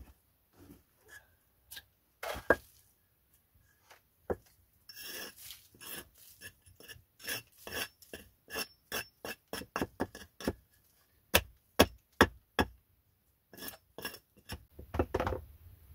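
Hatchet blows hewing a short upright log on a chopping block, shaping one side flat: sharp wooden knocks. The knocks are scattered at first, then come in a steady run of about two a second from about five seconds in, with a few more near the end.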